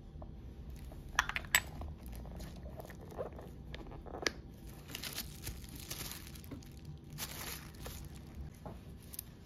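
Hands handling a small leather handbag on tissue paper: a few light clicks and knocks a little over a second in and again about four seconds in, then soft rustling of the paper and leather.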